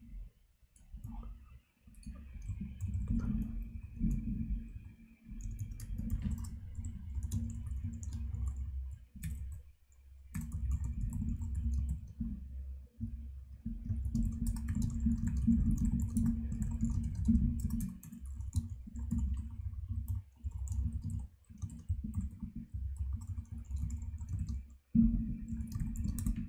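Typing on a computer keyboard: rapid, dull key strokes in runs, broken by short pauses.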